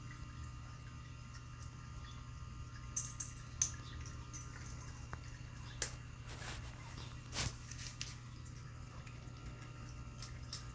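Cat eating treats from a plastic puzzle feeder: scattered small clicks and mouth smacks from chewing and licking, the sharpest a few seconds in and again a little past the middle, over a steady low hum.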